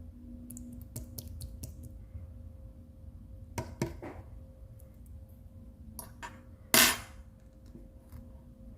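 Clear slime being squished and handled by hand, giving scattered sticky clicks and pops. The loudest pop comes about seven seconds in.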